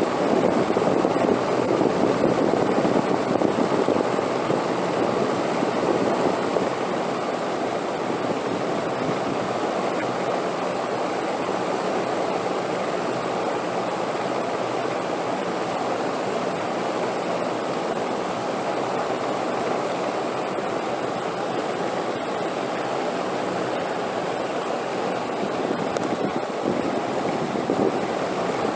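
Continuous wind rushing, somewhat stronger and gustier for the first several seconds, then settling into an even, steady roar.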